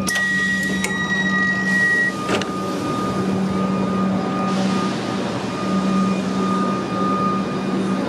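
A suburban electric train's door button is pressed with a click, then a steady high beep sounds for about two seconds as the doors open, ending in a sharp clunk. Under it the standing train's steady electric hum and high whine carry on.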